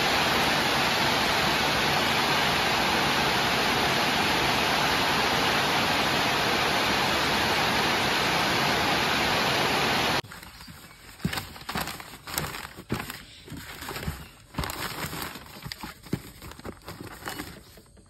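Steady, even rushing noise that cuts off abruptly about ten seconds in, followed by irregular rustling and light tapping of newspaper and cardboard being handled inside a cardboard box.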